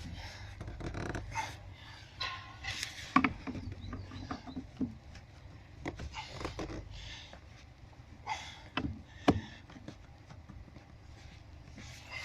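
Scattered clicks, knocks and rustling as a 10 mm hex key turns the white plastic retainer of the clutch pedal's pivot back into its seat under the dashboard, with two sharper clicks about three and nine seconds in.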